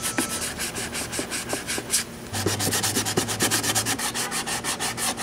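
120-grit sandpaper on a hand sanding block, dry-sanding cured epoxy filler on a plastic tail light lens in rapid back-and-forth scraping strokes, with a brief pause about two seconds in.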